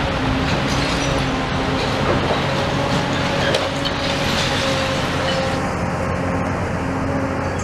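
Tracked demolition excavator's diesel engine running steadily as its grab works at a brick wall, with a few light knocks.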